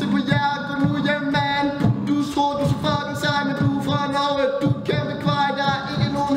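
Vocal beatboxing into a cupped handheld microphone: a steady beat of low kick-like hits, about two a second, with a wordless sung melody over it.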